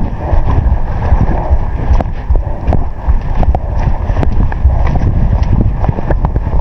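Wind buffeting the microphone in a loud, steady low rumble, with scattered sharp clicks and knocks throughout.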